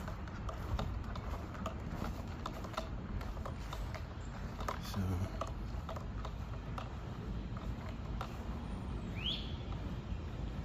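Outdoor background noise with many scattered light clicks and ticks, a dull thump about five seconds in, and one short rising chirp about nine seconds in.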